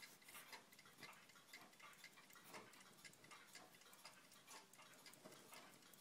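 Faint, quick ticking of a mechanical watch, several ticks a second.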